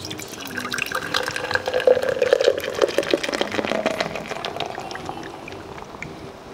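Cold malt drink poured from a can into a tall glass, splashing and fizzing as the foam builds up. The pour's tone rises a little as the glass fills, then the stream thins and the sound fades toward the end.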